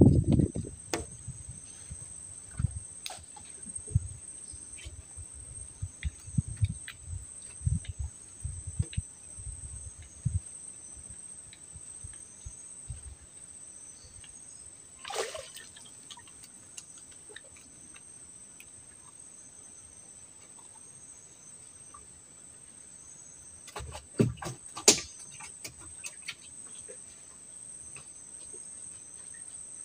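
A steady, high-pitched chorus of insects trilling on two pitches. Scattered low knocks and bumps come in the first ten seconds, and a few sharp clicks come a little before the end.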